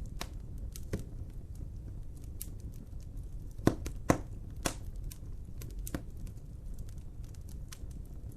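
Wood fire burning with a steady low rumble and scattered sharp crackles and pops, two louder pops close together near the middle.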